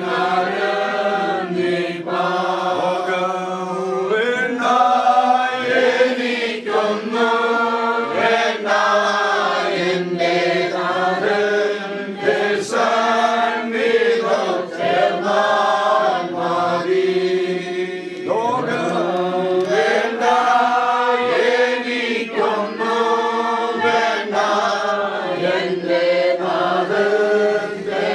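A group of voices singing a hymn together in held notes, over a steady sustained low tone.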